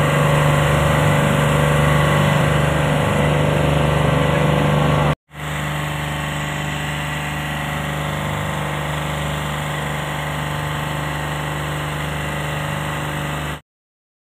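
Engine of a motorized outrigger boat (bangka) running steadily under way, a constant low drone. It drops out for a moment about five seconds in, resumes a little quieter, and cuts off shortly before the end.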